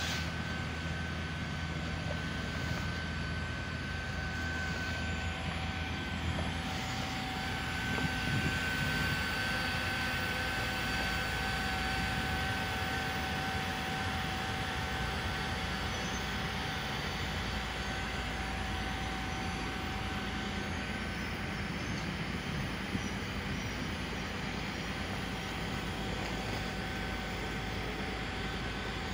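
LIUDU TOP3400C automatic hot-air PVC welder running while it welds a membrane seam. Its blower gives a steady rushing noise with a constant high whine, which drops out briefly about six seconds in.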